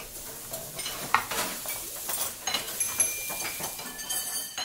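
Kitchen clatter: dishes and cutlery clinking and knocking, with a few short high tones near the end, cutting off suddenly.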